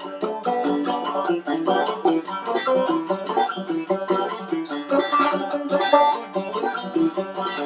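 Five-string banjo picked in a quick, steady run of notes.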